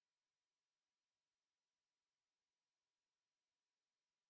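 Pure 14,000 Hz sine test tone held steady at one pitch, the hearing-test tone that listeners under about 30 should still be able to hear.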